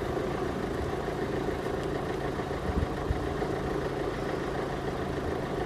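Road vehicles' engines idling steadily, a continuous low hum.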